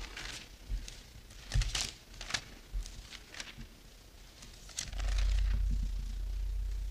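Bible pages rustling and turning, with small clicks of handling, picked up by a lectern microphone; a low rumble sets in about five seconds in.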